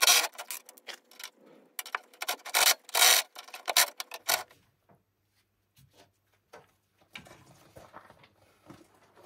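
Rough scraping strokes against the rusty steel of a riding-mower cutting deck: a quick run of them over the first four seconds, then mostly quiet with faint small knocks.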